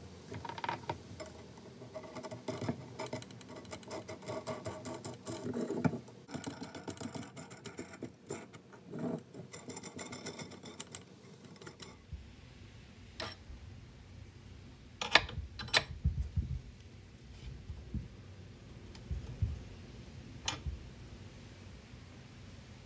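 Steel hex nuts and washers clinking and rattling on a threaded steel rod as they are threaded on by hand, with fast runs of ticking as the nuts spin along the threads. After about twelve seconds only a few separate sharp metal clicks are left.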